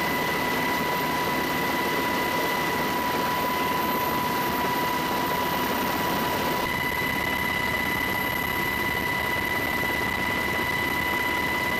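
Steady aircraft engine noise: a constant rushing with a high, level whine, without any blast or impact. The whine shifts slightly a little past halfway.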